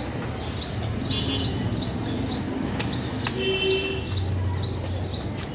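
A bird chirping repeatedly in quick, even calls, with two sharp knocks about three seconds in from a knife blade striking palmyra palm fruit.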